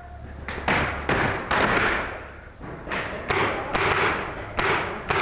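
Paintball markers firing during a close-quarters exchange: about ten sharp pops at an irregular pace, each with a short noisy tail, mixed with the thuds of paintballs striking.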